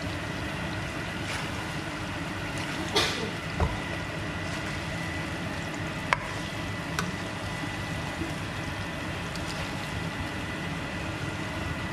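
Chicken pieces sizzling steadily in curry paste in a nonstick frying pan as they are stirred with a plastic spatula, with a few sharp clicks of the spatula against the pan about 3, 6 and 7 seconds in.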